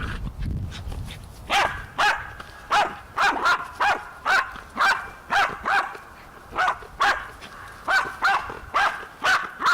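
Dog barking over and over in short, sharp barks, about two a second, starting about a second and a half in, with a short pause midway. There is a low rumble in the first second.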